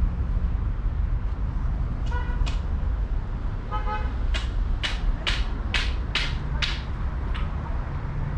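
Steady low traffic rumble with two short car-horn toots, followed by a run of sharp clacks about twice a second.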